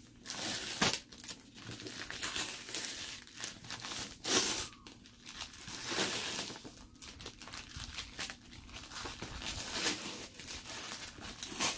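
Clear plastic packing-slip pouch being peeled off a cardboard box and scrunched up in the hand: irregular crinkling of plastic and tearing of its adhesive.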